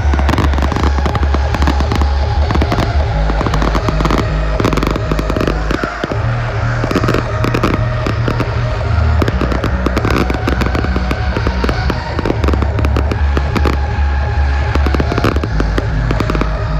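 Fireworks going off in dense, rapid crackles and pops, over loud music with heavy bass.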